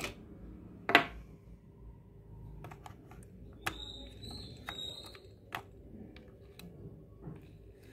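Scattered plastic clicks and taps from handling an opened mini cassette player, the loudest about a second in, over a faint steady hum. A faint high whine lasts about a second in the middle.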